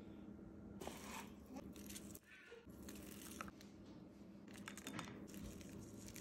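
Faint plating sounds: a metal spoon and a spatula scraping and tapping on a ceramic bowl as orzo and fried feta are set down, a few soft scrapes and clicks over a low steady hum.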